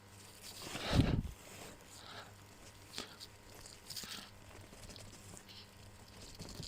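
A spin-on oil filter being screwed on by hand: faint scraping and light clicks of hands and filter against the engine. There is one louder thump about a second in.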